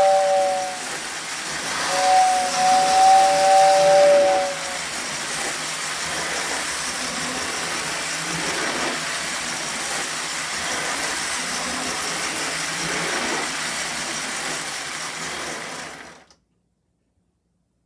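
Lionel 243W whistle tender's electric air whistle blowing a two-note chord, once until just under a second in and again for about three seconds. Then the toy train runs steadily on the three-rail track with an even whirring hiss, which cuts off abruptly about 16 seconds in.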